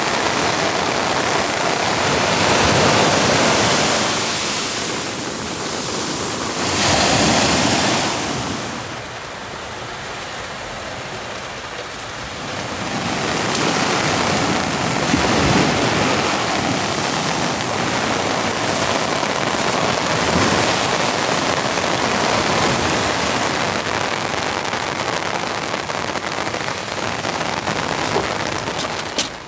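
Sea waves breaking and washing up a sandy beach in a continuous rush that swells and ebbs, with a quieter lull about a third of the way through.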